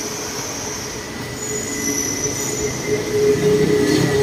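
Yellow Line monorail train running at the elevated station, a steady electric whine with several held tones over street noise, growing louder about three seconds in.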